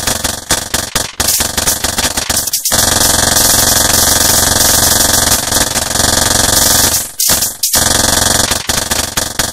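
Harsh noise piece made from low-tech sound interference: fast, stuttering crackle for the first couple of seconds, then a dense, continuous wall of distorted noise for about four seconds, breaking back into choppy crackle near the end.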